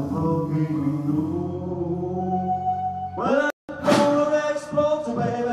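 Blues band playing, led by a harmonica holding long notes and bending up into them over bass and drums, with sharper drum hits in the second half. The sound cuts out for a split second a little past halfway.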